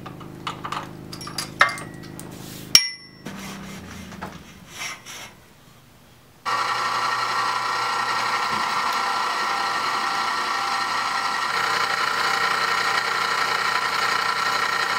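Handling clicks and knocks with one sharp, ringing metallic clink, then about six seconds in a drill press starts running steadily and loudly, its bit drilling bolt holes through the holes in the clamped knife tang into the handle scale and liners beneath.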